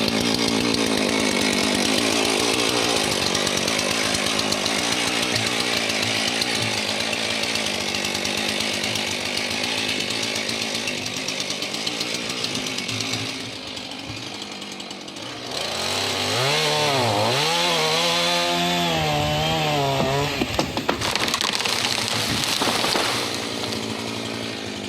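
Chainsaw running and cutting, its engine pitch repeatedly rising and falling. It eases off about thirteen seconds in, then comes back strongly with uneven revving before dropping away near the end.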